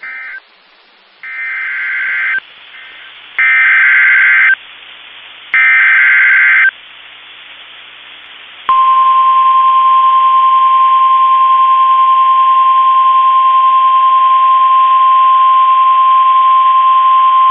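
NOAA Weather Radio Emergency Alert System tones for a tornado warning. After a short blip come three bursts of about a second each of warbling SAME header data. Then the steady single-pitch warning alarm tone sounds for about nine seconds.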